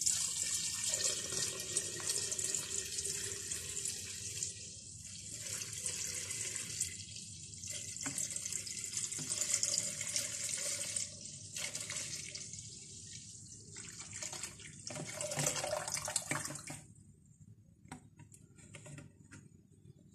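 Milk pouring in a steady stream through a cheesecloth strainer into a pot, with a running, splashing sound. The flow tapers off and stops about three seconds before the end.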